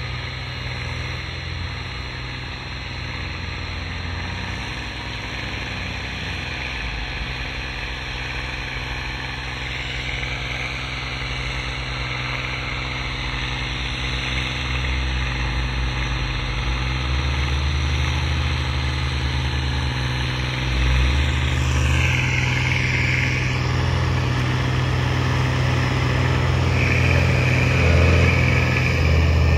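Landini Mythos tractor's diesel engine running steadily while pulling a cultivator, growing gradually louder.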